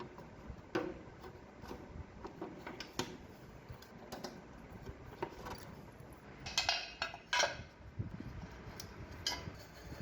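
Small metal tools and engine parts clinking and tapping as they are handled, with a quick cluster of brighter, ringing clinks about two-thirds of the way through.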